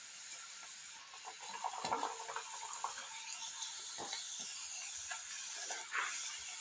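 Puris deep-frying in hot sunflower oil, a steady sizzle, with a few sharp clicks and scrapes of a utensil against the pan.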